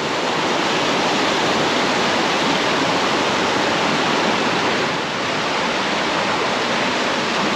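Steady, loud rush of fast-flowing stream water over rocks.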